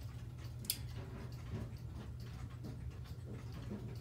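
Mechanical pendulum clock movement of a Howard Miller 613-303 wall/mantle clock ticking, heard as scattered sharp clicks over a steady low background hum.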